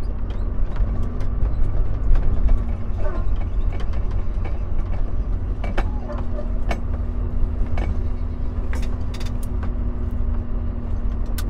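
Inside a Volvo semi-truck cab at low speed: the diesel engine's steady low rumble and hum, with scattered sharp clicks and creaks from the cab.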